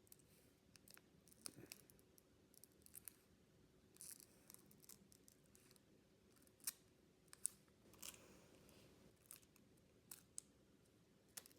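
Faint handling of a foil booster pack and trading cards: scattered light clicks and snaps with a couple of brief crinkling rustles, a little over four seconds in and again around eight seconds in.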